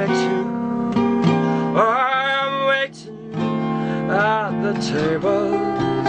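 Stanford acoustic guitar playing an instrumental passage, with a brief drop-out just before three seconds in.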